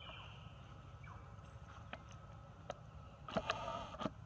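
Short animal calls: a brief falling chirp at the start and a louder call of about half a second a little past three seconds in. A few soft clicks come in between, over a faint steady hum.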